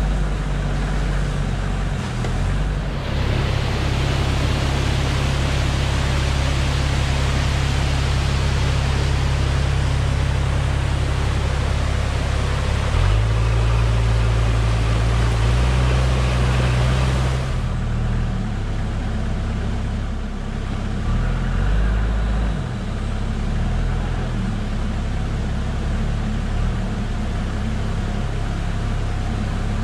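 Toyota Land Cruiser HZJ73's 1HZ inline-six diesel engine running at low speed on a trail, its low drone changing pitch a few times. A strong steady hiss lies over it from about three seconds in until about seventeen seconds, then drops away.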